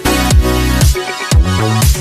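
Background music: an electronic dance track with a deep kick drum that falls in pitch, about twice a second, over a sustained bass line.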